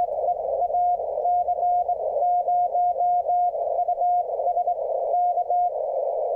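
Morse code (CW) received from an amateur radio station on HF: a 700 Hz tone keyed in dots and dashes over steady band static. It is played through a regular Radio Shack communications speaker.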